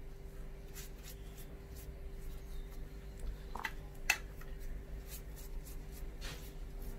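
Quiet hand-handling sounds: a few light taps and soft rubbing as cookies and a sheet of fondant are picked up and set down on a granite worktop, over a steady low hum.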